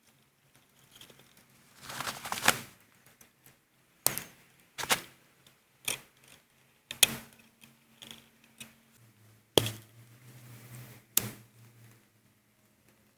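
Swiss Army knife being handled: a string of about eight sharp, irregularly spaced clicks and knocks, with softer scraping between them.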